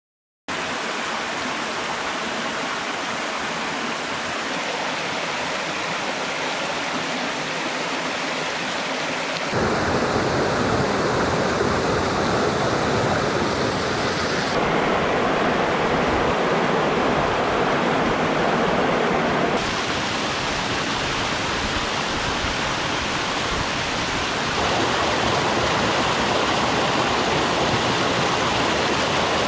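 A small waterfall and mountain stream rushing steadily over rocks. The sound starts about half a second in, and its tone and loudness shift abruptly every five seconds or so.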